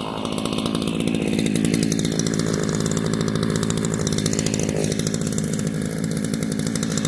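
Ryobi RY3714 14-inch corded electric chainsaw running steadily as it cuts down through a bush stump.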